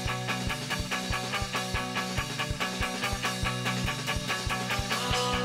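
Instrumental end-credits music with a steady, quick beat.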